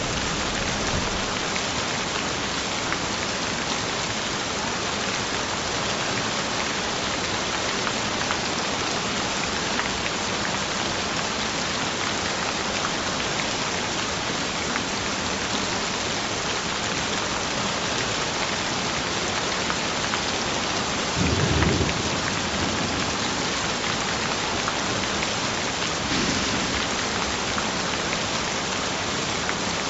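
Steady rain falling, an even hiss, with a brief low rumble about two-thirds of the way through.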